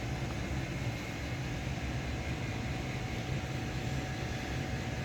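Steady low machine hum with a faint hiss.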